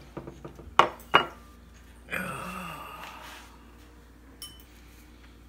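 Two sharp clinks of a plate knocked against a table about a second in, the second with a brief ring, followed by a man's drawn-out vocal sound and a small click near the end.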